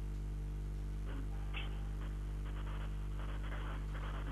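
Steady low electrical hum with a few faint, indistinct voice-like sounds over it.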